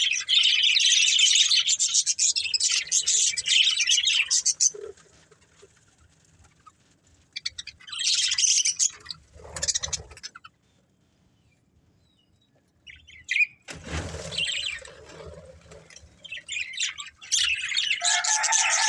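Budgerigars chirping and warbling in busy high-pitched chatter, falling silent twice for a few seconds between bursts. Near the end a lower, drawn-out call sliding down in pitch starts under the chirping.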